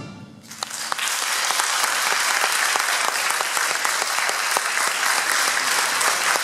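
The band's last chord dies away, and about half a second in the audience breaks into applause, which goes on as steady, dense clapping.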